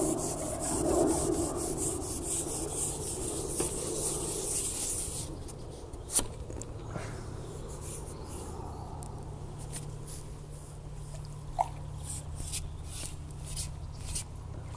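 Carbon pole-fishing pole being shipped back by hand, its sections sliding and rubbing in quick strokes, several a second, for the first five seconds; then quieter, with a few sharp clicks and knocks, the loudest about six seconds in.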